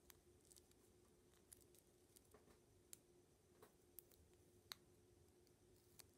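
Near silence with faint, scattered small clicks and crackles as fingers peel and handle die-cut ginkgo-leaf washi tape on its roll, over a low steady hum.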